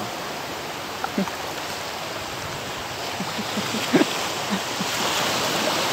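Small sea waves washing over a rocky shoreline: a steady rushing that grows a little louder about halfway through, with a couple of short voice sounds.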